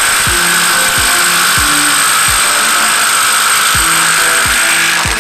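Matco 20V cordless 3/8-inch-drive brushless impact wrench hammering steadily for about five seconds against a nut torqued to 550 ft-lbs, cutting off at the very end. Background music with a deep bass beat plays underneath.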